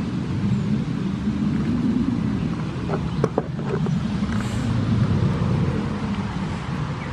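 Steady low rumble, with a few sharp clicks about three seconds in.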